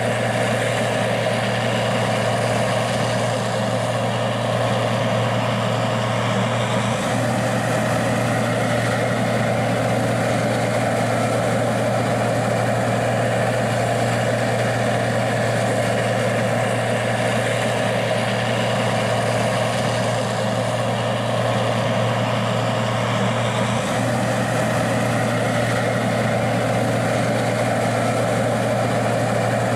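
Gleaner R60 combine's diesel engine running steadily at a constant speed, an even low drone with no change in pitch.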